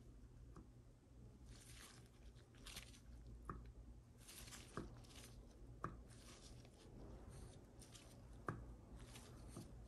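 Near silence, with a few faint clicks and soft rustling as gloved hands rock the GM TH400 gear train assembly to feel the play left between its gears.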